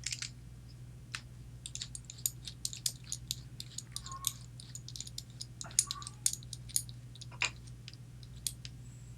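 Small metal clicks and taps of a Medeco camlock being handled and taken apart, parts and tools knocking lightly at irregular moments, over a steady low hum.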